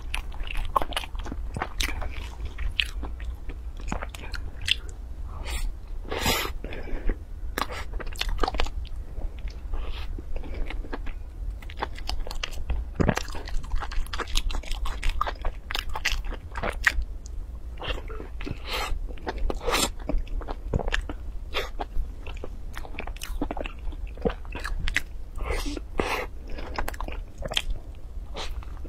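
Close-miked biting and chewing of a soft glazed bread bun: irregular wet mouth clicks and short crunches, with no pause.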